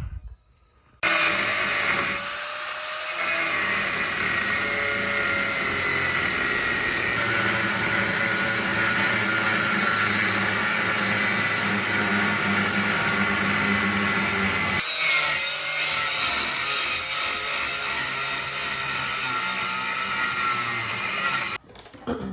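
Power tool cutting through the heads of the factory rivets that hold an original upper ball joint on a 1972 Camaro's front control arm: a loud, steady, gritty whine of a tool bearing into the metal. It starts about a second in, changes pitch briefly about two seconds later and again past the middle, and stops abruptly near the end.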